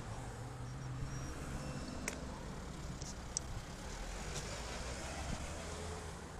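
Road traffic passing: a car's engine hum and tyre noise, steady and fairly low, with a few short sharp clicks about two, three and four seconds in.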